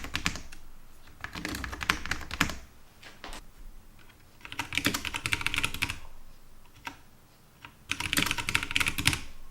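Mechanical keyboard keys typed in several short bursts of fast clicking, comparing the Cooler Master SK630's Cherry MX low-profile red linear switches with another keyboard.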